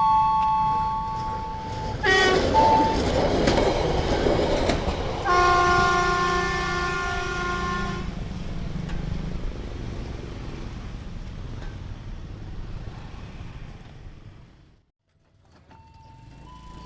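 A train passes through a level crossing, sounding its horn briefly about two seconds in and again in a longer blast of about three seconds, over the rumble and clatter of the wheels. The noise fades away and cuts out abruptly near the end, and the crossing's electronic warning tones come back.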